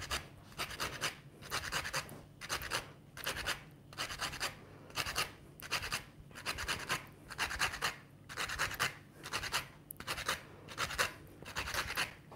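A lemon being zested on a handheld grater: regular scraping strokes of the peel across the grater's teeth, about two a second.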